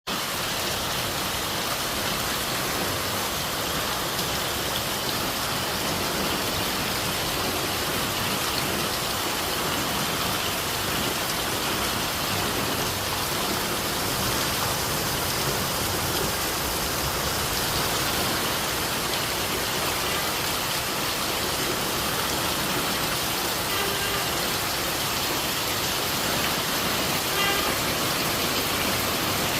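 Steady, even rushing noise at a constant level, with a few faint short pitched sounds near the end.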